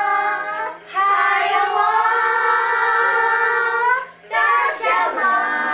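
Young children singing together in long, held notes, with two short breaks: about a second in and about four seconds in.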